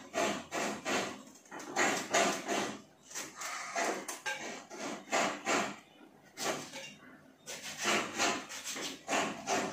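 Kitchen knife scraping and slicing the peel off a vegetable in repeated short strokes, with a brief lull a little past the middle.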